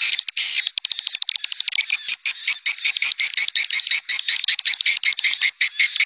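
Swiftlet lure call: a recording of edible-nest swiftlets twittering in a dense, high chatter with rapid clicks, played to draw swiftlets into a nesting house.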